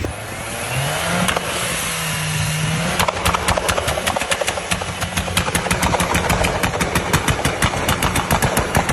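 An off-road 4x4's engine running, its pitch rising in the first second and then holding steady. From about three seconds in, a rapid, irregular clatter of clicks and knocks sounds over the engine.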